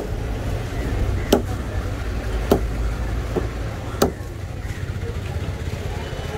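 A heavy curved fish knife chopping through skipjack tuna into a wooden block: about five sharp chops, roughly a second apart. A steady low rumble runs underneath.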